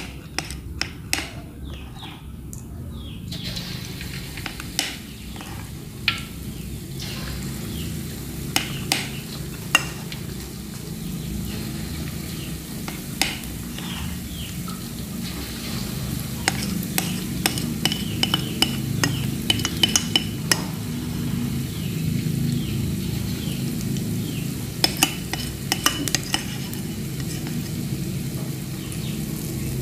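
Banana-dough balls deep-frying in hot oil in a wok: a steady sizzle that starts up a few seconds in and slowly grows louder, with scattered sharp clicks and clinks against the pan.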